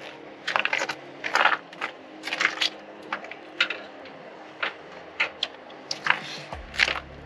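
Scattered light clicks and clinks as an Autel Dragonfish drone wing, with aluminium clips on its side, is handled and laid down on a table. A low rumble comes in near the end.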